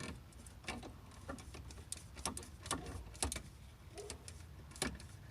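Hand grease gun being worked: a scatter of short, sharp clicks and ticks at irregular intervals, about a dozen in all.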